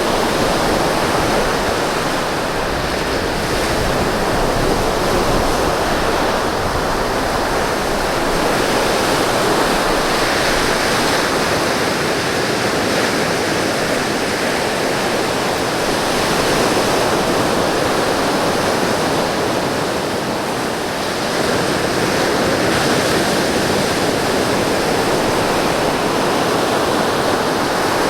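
Ocean surf breaking on a beach, a continuous rush of waves that swells and eases every few seconds.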